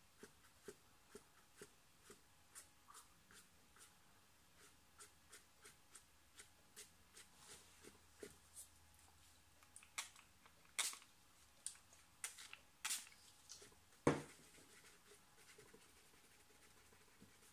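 A paintbrush working dark paint onto watercolour paper: a run of short dry ticks, about two a second, sharper and louder from about ten seconds in, with one heavier knock near the end.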